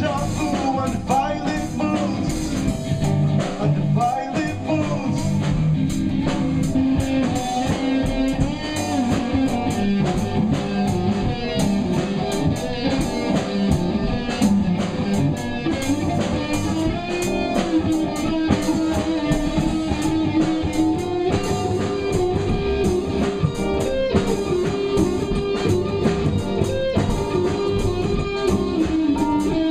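Live alternative rock band playing an instrumental passage on electric guitar, bass guitar and drum kit. In the second half the Telecaster-style electric guitar moves into the start of a long guitar solo over the bass and drums.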